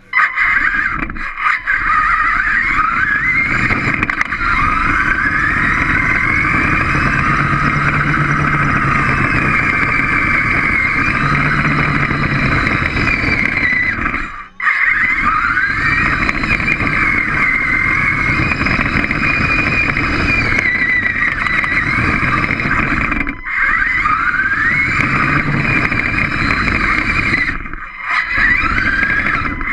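Small robot's electric drive motors whining as it drives across a hard floor, the pitch rising and falling with its speed, over a rough rumble from the drive. It stops briefly a few times, once about halfway.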